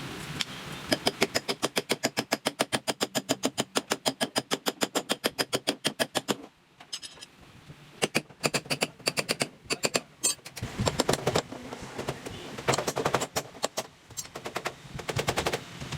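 Rapid, even hammering on car body sheet metal, about seven or eight sharp strikes a second for several seconds. After a short pause come further irregular bursts of strikes.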